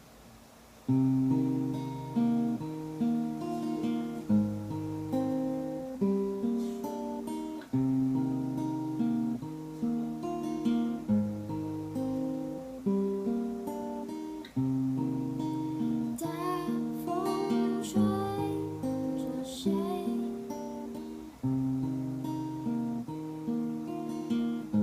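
Solo acoustic guitar playing the song's opening chord pattern, starting about a second in and going on steadily as the introduction before the vocals.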